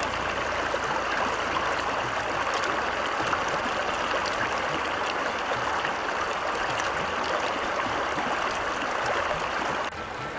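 Steady rush of flowing water, with no distinct tones or clicks; the level drops suddenly near the end.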